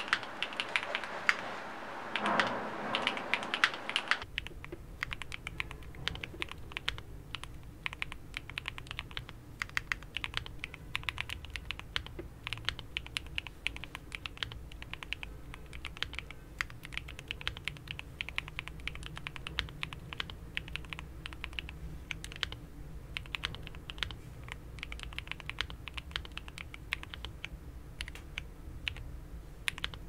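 Continuous fast typing on a Monsgeek M1 mechanical keyboard with Gateron Quinn heavy tactile switches, tape-modded with plate foam and a PE sheet: a dense, rapid stream of key clicks and bottom-outs. About four seconds in, the sound turns duller, with a steady low hum underneath.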